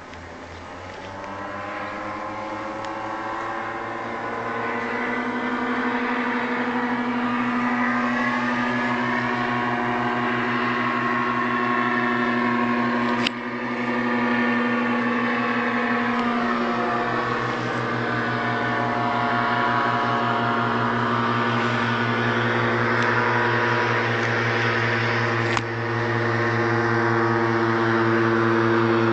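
Aprilia SportCity One 50cc scooter engine idling steadily at an even pitch, growing louder over the first few seconds. There are two brief clicks partway through.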